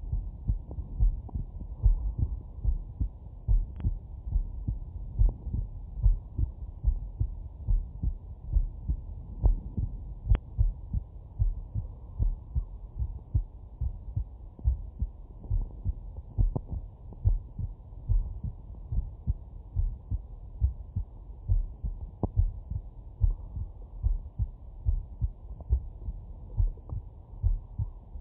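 A man's heartbeat picked up through a Stemoscope digital stethoscope: regular, evenly spaced beats with a dull, low tone.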